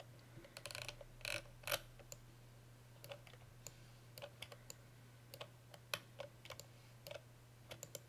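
Faint, irregular clicking of a computer keyboard and mouse being worked, with a few clicks in quick succession near the start and scattered single clicks after. A steady low hum runs beneath.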